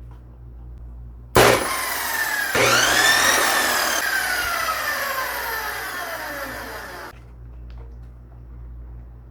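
High-speed abrasive cut-off saw, its power cord just replaced, starting with a sudden loud burst and running with a high whine that slowly drops in pitch, then stopping abruptly about seven seconds in.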